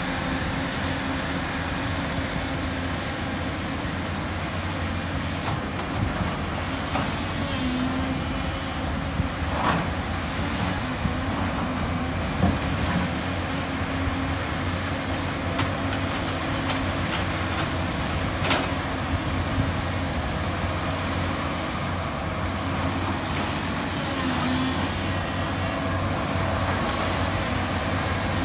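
Volvo EC350 crawler excavator's diesel engine running steadily as it digs and swings, with a few sharp knocks from the digging.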